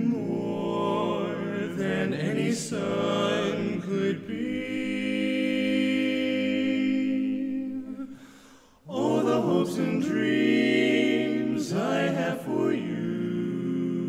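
Barbershop quartet singing a cappella in close four-part harmony, holding long chords. A sustained chord fades out about eight seconds in, and after a short break the singing resumes.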